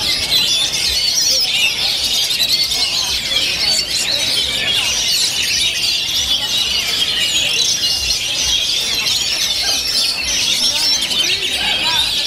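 Caged Oriental magpie-robins (kacer) singing: a continuous, dense stream of rapid, varied high chirps and trills, with song overlapping throughout.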